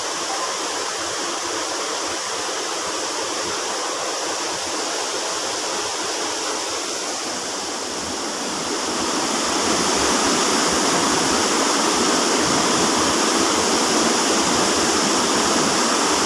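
Small river's water rushing and splashing steadily, growing louder about nine seconds in.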